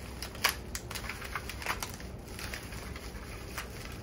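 Plastic wrapping crinkling and rustling in the hands as a small item is unwrapped, with a sharp crackle about half a second in.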